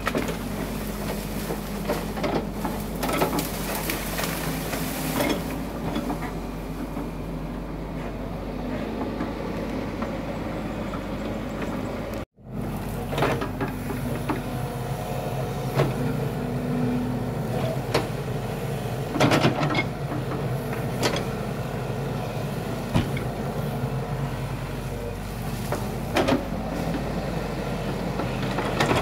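Hitachi hydraulic excavator's diesel engine running steadily under load as it digs, with scattered knocks and scrapes as the bucket works the soil.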